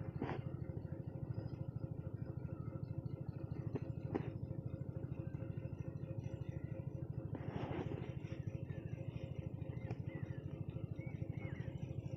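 An engine running steadily at idle nearby, a fast even throb with a held low hum. A couple of light metal clicks come through it, about four and eight seconds in, as valve springs and their parts are handled.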